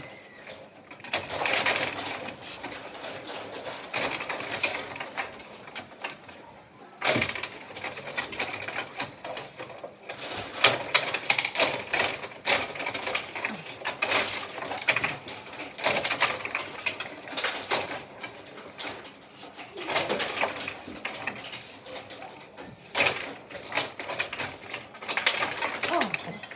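Rod table hockey game in play: the metal control rods rattling as they are pushed, pulled and spun, with the figures and puck clacking against each other and the boards in a dense run of quick clicks and knocks.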